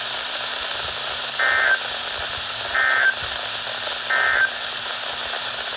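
Emergency Alert System end-of-message data tones: three short, buzzy digital bursts about a second and a half apart, marking the end of the alert. They sit over steady radio hiss and a low hum.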